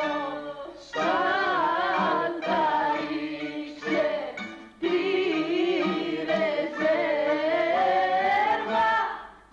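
Stage cast singing a song in long held phrases, the voices wavering in pitch, with short breaks about one second and about five seconds in.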